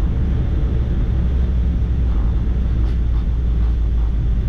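Cockpit noise of a Boeing 787-8 on its landing rollout: a steady low rumble as the airliner rolls down the runway, slowing from high speed.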